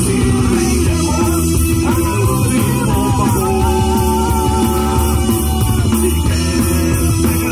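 A live rock band playing loud and steady: electric guitars, bass guitar, drums and keyboard, with sung vocals and long held notes in the melody.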